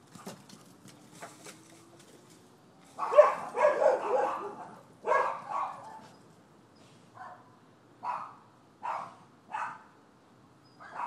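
Dogs barking: a loud run of quick, overlapping barks about three seconds in and a few more near five seconds, then four single barks less than a second apart toward the end.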